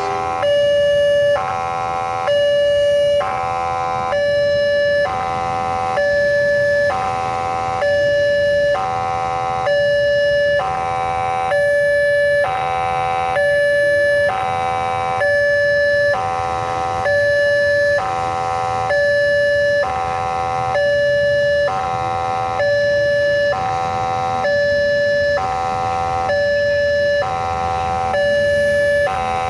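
Electronic warning siren of a railway level crossing, alternating steadily between two tones about once a second. It has a hoarse, raspy sound.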